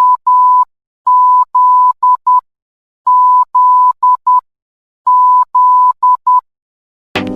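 Morse code beeps, a steady tone of about 1 kHz keyed in long and short pulses: the letter Z (dash dash dot dot) sent three times, about two seconds apart. Music starts near the end.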